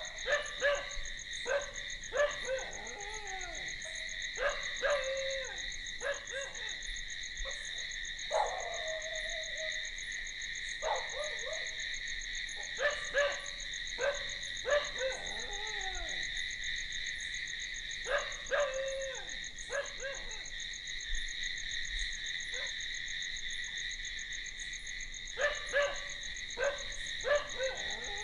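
Night chorus of crickets, a steady high-pitched trilling. Over it a distant animal gives short calls that fall in pitch, in pairs and small groups every few seconds.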